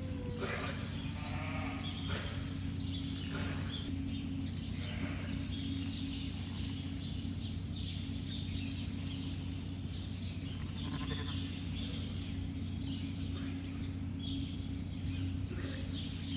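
Ewes and newborn lambs bleating on and off, several separate calls over a steady low hum.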